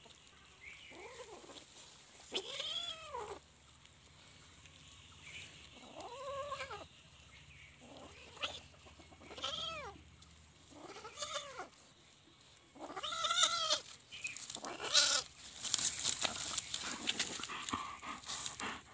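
A kitten meowing over and over, about seven separate calls, each rising then falling in pitch. Scratchy rustling noises fill the last few seconds.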